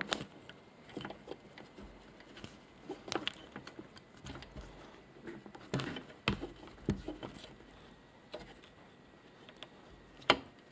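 Pliers working a crimp connector off a bundle of wires: scattered small clicks, taps and rustles of metal jaws and wire being handled, with one sharper click near the end.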